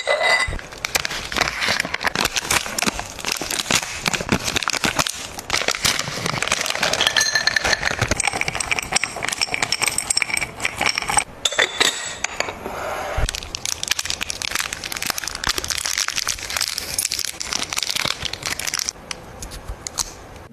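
Plastic packaging crinkling and rustling as it is handled, almost without a break, pausing briefly about eleven seconds in.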